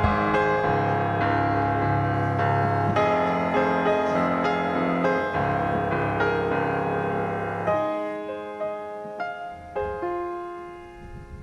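Background piano music, a steady run of notes that thins out to sparse single notes about eight seconds in.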